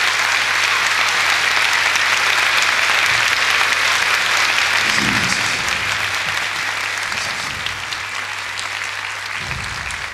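Large theatre audience applauding, strong at first and slowly dying down through the second half, over a low steady hum.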